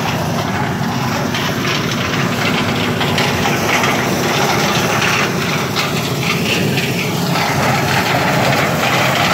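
Engine-driven maize sheller running steadily: a continuous engine drone under a dense, even noise, with no change in level.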